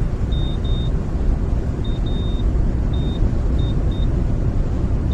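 A loud low rumble that starts abruptly, with about eight short high-pitched beeps of uneven length at irregular intervals.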